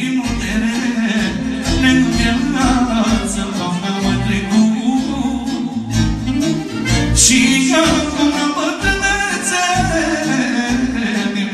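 Live manele song: a man singing into a microphone over an amplified band with a steady beat.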